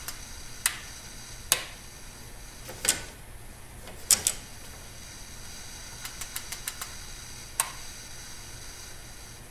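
Scattered sharp clicks and light knocks from handling a Bridgeport power feed unit, including a quick run of small ticks, over a steady low hum; the feed motor does not run, because a wire has pulled out of its harness.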